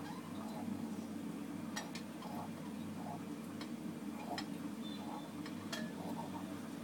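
Siphon coffee maker heated over a burner, bubbles coming up into the upper chamber with irregular soft ticks and pops, over a steady low hum.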